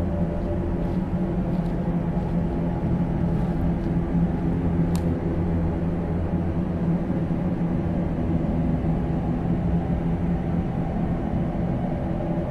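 Steady low rumbling drone of a dark ambient horror soundtrack, unchanging throughout, with one brief sharp click about five seconds in.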